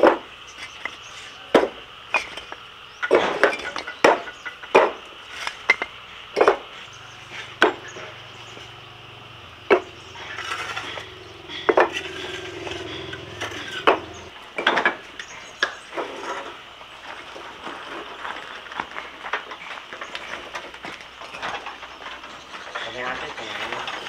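Irregular sharp wooden knocks and clinks, like household or kitchen work with wood and utensils, coming every second or so and growing fainter after about sixteen seconds, over a steady high-pitched hum.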